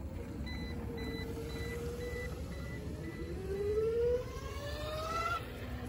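Self-balancing hoverboard with a go-kart attachment beeping a string of short high beeps, its speed warning, which is taken to mean it is going too fast. Its hub motors whine, rising steadily in pitch as it speeds up, and stop near the end, over a low rumble of wheels on pavement.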